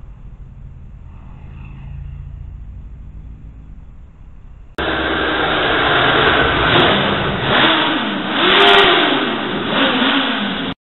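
A low engine rumble, then about five seconds in an abrupt cut to the much louder Suzuki Bandit GSF 600 N's four-cylinder engine revving up and down inside a road tunnel; it cuts off suddenly near the end.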